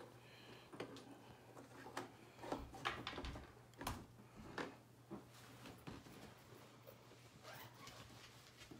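Faint, scattered clicks and light knocks over a steady low hum.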